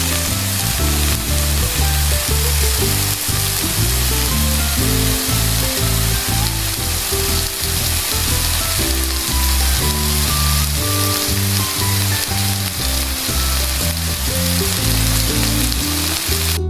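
Batter deep-frying in hot oil in a wok, a steady dense sizzle that cuts off at the very end, with background music playing over it.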